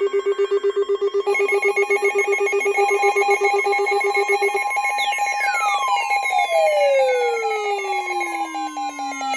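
Electronic emergency alert tones overlapping: a rapidly pulsing beep, joined about a second in by a higher pulsing tone. About halfway through, a set of falling whistle-like sweeps and a steady tone come in.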